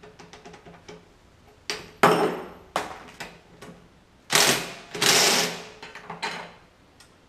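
Metal tools and parts being worked at a motorcycle's rear wheel and sprocket: a quick run of light clicks, then several loud scraping, clattering bursts with small knocks between.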